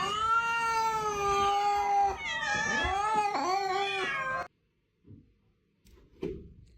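A cat yowling: one long, drawn-out meow lasting about two seconds, then a second one that wavers in pitch and cuts off suddenly about four and a half seconds in.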